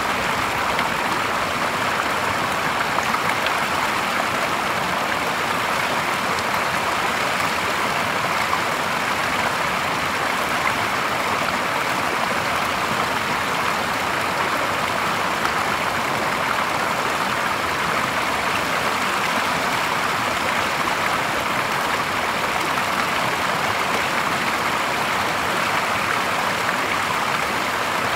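A small cascade of stream water splashing steadily into a shallow pool, with an even, unbroken rush of flowing water.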